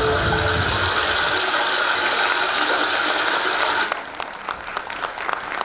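Audience applause in a hall as the dance music ends, its last low note fading about half a second in. The applause is loud and dense, then drops suddenly a little before four seconds to quieter, scattered clapping.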